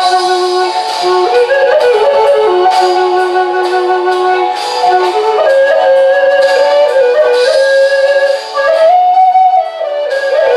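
Quilted maple Native American flute in F#, played in a slow improvisation of long held notes that step between pitches, over a guitar backing track.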